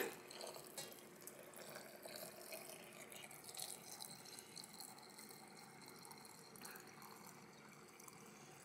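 Faint trickle of water and vinegar being poured from a steel pot into a glass jar of sausages, with small drips and splashes.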